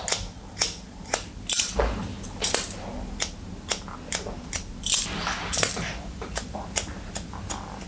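Barber's scissors snipping wet hair in a quick, uneven run of crisp snips, about three a second, the blade tips point cutting into the ends for a jagged, textured finish.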